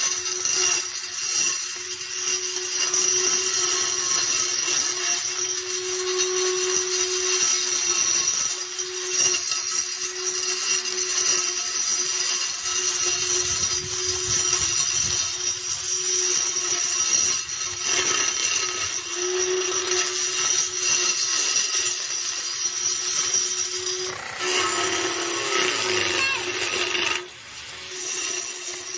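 Small electric motor of a homemade grass trimmer whining steadily at speed as its spinning cutter chops through weeds and grass. The sound changes a few seconds before the end and dips briefly near the end.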